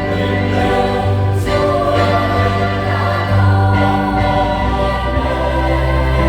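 Choir singing a Christian hymn, with long held notes over a steady low bass.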